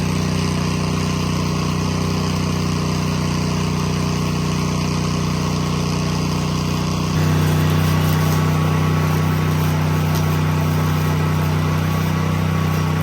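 Engine-driven welder's engine running steadily, with a slight change in its tone and level about seven seconds in.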